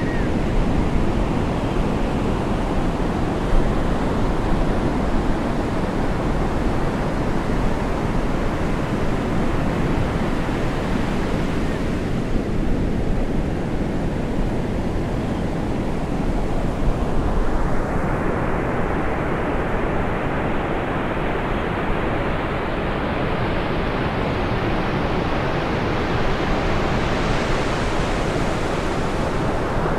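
Ocean surf breaking and washing in a steady rushing noise. In the second half a brighter rushing sound grows in and keeps rising in pitch toward the end.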